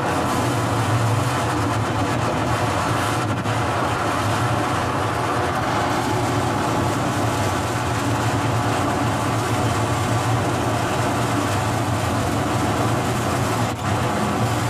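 Excavator-mounted rock saw wheel grinding a cut into a stone quarry floor, with the excavator's engine running under load: a loud, steady grinding noise over a strong low hum, dipping briefly near the end.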